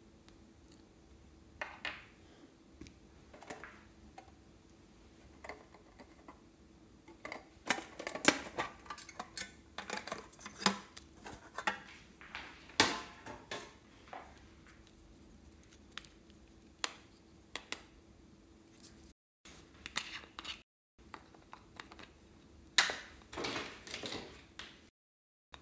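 A metal spoon scraping and clinking against a small plastic container and a glass baking dish, in irregular clusters of clicks and taps. The sound drops out to dead silence a few times where the recording is cut.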